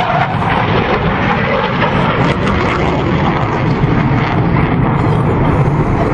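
Jet noise from a Panavia Tornado's twin RB199 turbofan engines, a steady, loud rush of sound.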